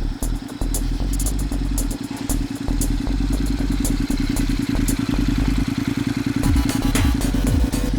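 Honda NC700X motorcycle's parallel-twin engine running.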